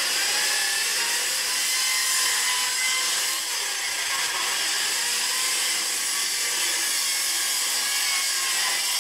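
Skilsaw worm-drive circular saw, its wood blade mounted backwards, cutting through corrugated sheet-metal roofing: a loud, steady, horrible grinding shriek through the whole cut.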